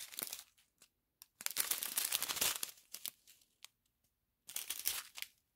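Small plastic bags of diamond-painting drills crinkling as they are handled. There is a longer stretch of crinkling about a second and a half in, and a shorter one near the end, with a few light ticks between them.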